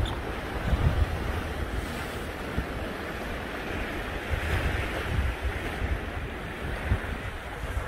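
Sea surf washing against rocky cliffs below, with wind buffeting the microphone in uneven low gusts.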